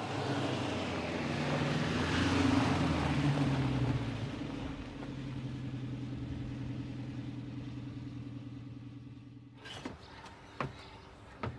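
A vehicle engine running steadily, loudest a few seconds in and then fading, followed near the end by a few sharp clicks.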